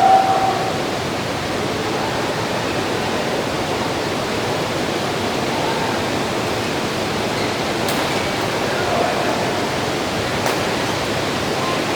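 Steady hiss of rain falling, with a brief tone right at the start and two faint clicks later on.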